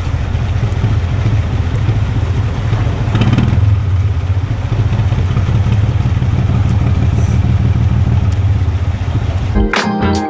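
Narrowboat's diesel engine running steadily in a lock chamber, with water rushing through the open lock paddles as the lock empties. Music starts near the end.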